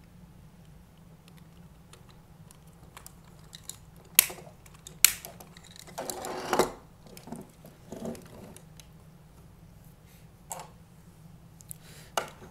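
Parts of a Power Rangers Legacy Collection Megazord toy being handled and fitted together: a scattering of clicks and clacks, two sharp clicks about four and five seconds in, a brief scrape around six seconds, then lighter clicks.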